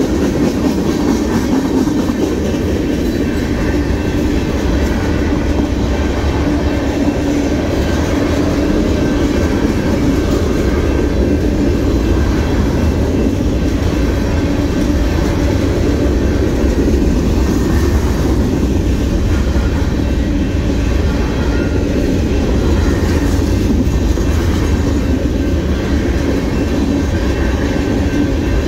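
Freight cars of a mixed freight train rolling past at steady speed: a loud, steady rumble of steel wheels on rail with a rhythmic clickety-clack over the rail joints.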